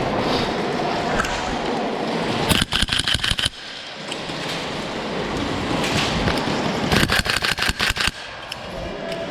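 Gas blowback airsoft rifle firing two rapid bursts of about eight to ten shots each, a few seconds apart, each shot a sharp crack with the bolt's clack.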